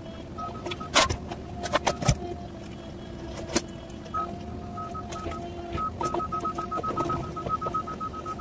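Cat 304 mini excavator running under load as it lifts a slung concrete pipe, with a steady machine hum and several sharp knocks, the loudest about a second in. A rapid electronic beeping comes in briefly early, returns about four seconds in, and runs almost without a break through the last few seconds.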